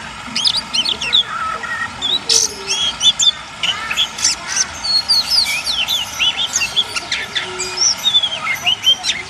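Songbirds singing busily, many quick whistled notes and chirps overlapping, over a steady soft rush of trickling water.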